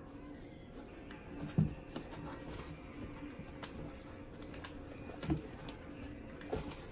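Cardboard box being knocked and scuffed as a Newfoundland dog noses and bites at its holes for an apple slice: a few dull knocks, the loudest about a second and a half in and two more near the end, with lighter clicks and a faint steady hum underneath.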